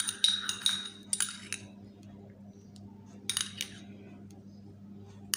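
Metal teaspoon clinking against the inside of a small ceramic cup while stirring a thick oil mixture, in short clusters: one at the start, another about a second in, one a little past three seconds and one at the very end. A faint low steady hum runs underneath.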